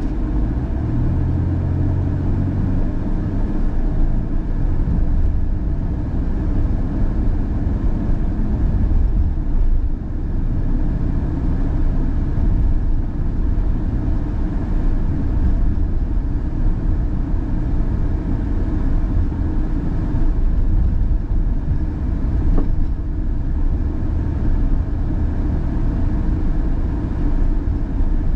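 Car driving on a town street: a steady low rumble of engine and tyres on the road, with a deeper hum that swells briefly a second or two in.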